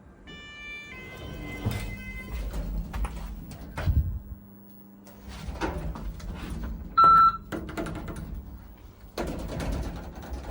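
ThyssenKrupp passenger lift doors sliding and thudding, with a steady hum from the lift underneath and a short, loud electronic beep about seven seconds in.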